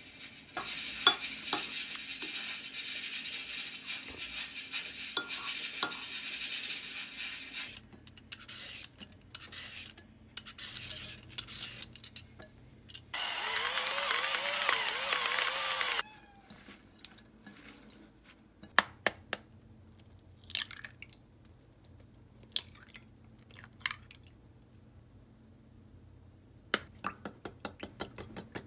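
Kitchen food-prep sounds: stretches of steady rasping noise and scattered clicks and knocks of utensils on dishes, then near the end a fork beating eggs in a ceramic bowl, a quick even ticking about six times a second.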